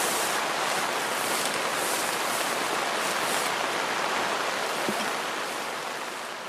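River water rushing steadily over a shallow rocky riffle, fading out near the end.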